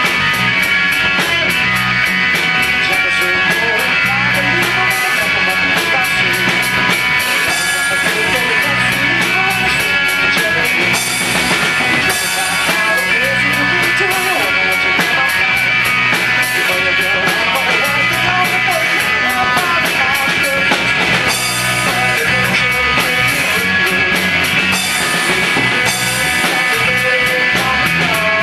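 Rock band playing at full volume: drum kit with steady cymbal strokes and electric guitar.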